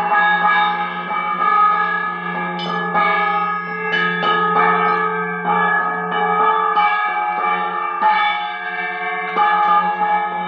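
Metal bells and a gong struck again and again during a puja's lamp offering. Each stroke leaves long overlapping ringing tones over a steady low hum.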